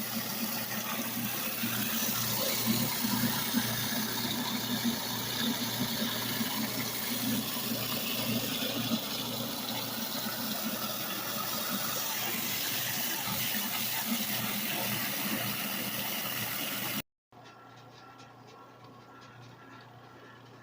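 Water pouring into the wash tub of a Costway twin tub washing machine as it is filled, a steady rushing that cuts off suddenly about 17 seconds in. A much quieter faint hum follows.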